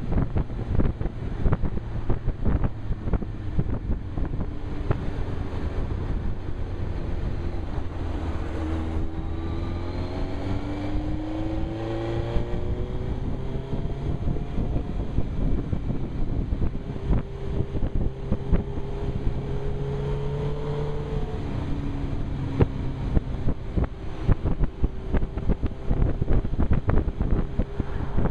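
Wind buffeting the helmet-mounted camera's microphone on a moving Suzuki GSX-R 1000, with the bike's inline-four engine heard under it. The engine note rises about nine seconds in, holds steady, then drops a little past twenty seconds.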